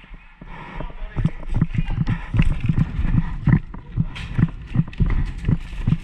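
Footsteps of a player running, heavy low thuds about three a second that pick up about a second in.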